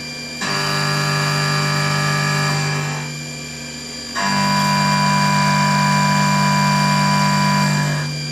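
CNC vertical milling machine's end mill cutting a part held in a vise: a loud, steady pitched whine with many overtones. It comes in two stretches, starting abruptly about half a second in and again about four seconds in, each fading away after three to four seconds as the cutter works through its passes.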